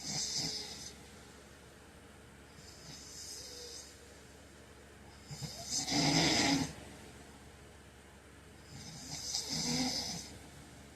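A man snoring in his sleep: four snoring breaths about three seconds apart, mostly breathy hiss. The loudest, about six seconds in, has a deep low snore under the hiss.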